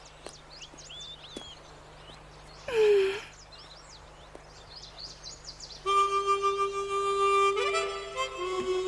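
Faint birds chirping, with one short vocal sound falling in pitch about three seconds in. About six seconds in, background music starts, a melody of held notes.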